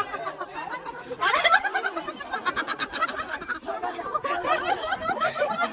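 A group of people talking over one another and laughing, with a run of quick laughter in the middle.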